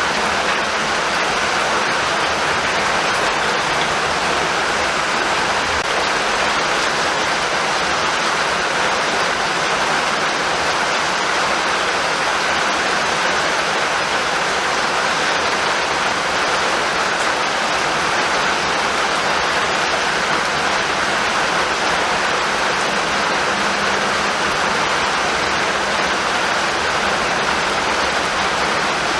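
Steady rainfall, an even hiss of rain falling on surfaces with no breaks.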